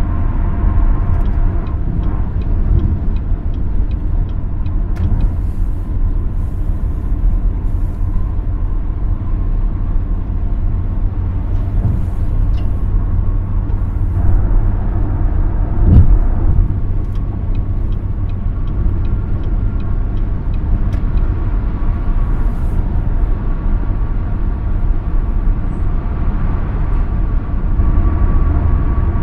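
Cadillac XT5 at highway speed: steady low tyre and road rumble with engine noise. A single short thump comes about 16 seconds in.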